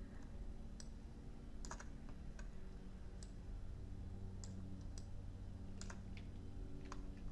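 Computer mouse and keyboard clicks while working in 3D software: about ten sharp clicks, scattered irregularly and some in quick pairs. A faint steady low hum lies under them.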